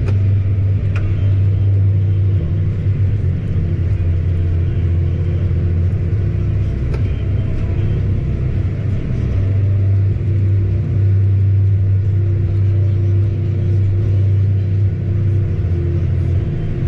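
Vehicle engine running steadily: a loud, even low drone that barely changes.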